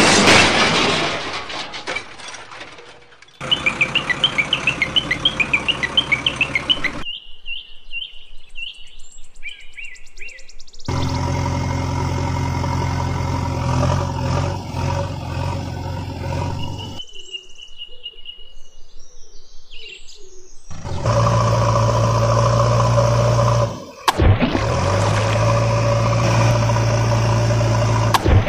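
A sequence of sounds: water splashing, then birds chirping rapidly and calling, then a diesel engine running steadily; birdsong returns briefly before the engine runs again, cut off for a moment about three-quarters through.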